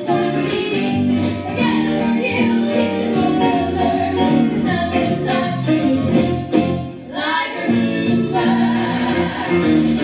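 A live band playing a song with singers, several voices singing together over the instruments.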